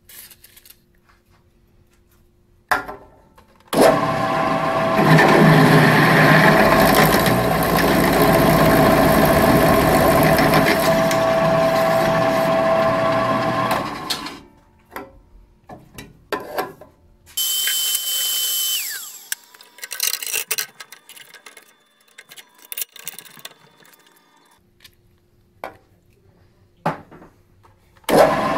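A drill press motor starts about four seconds in and runs steadily for about ten seconds, its twist bit cutting a tap hole for a grease fitting into a steel roller tube, then spins down. Scattered clicks and knocks follow, with a short spray hiss from a can of WD-40 lubricating the hole. The drill press starts again right at the end.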